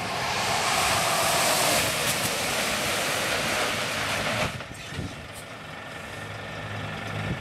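Scania truck coming on fast over a wet road: its tyres hiss through the standing water over the engine noise, growing louder, then the sound drops off sharply about four and a half seconds in as the truck pulls up under automatic emergency braking short of a stationary target. A few short clicks follow, then the engine runs on at a lower, steady level.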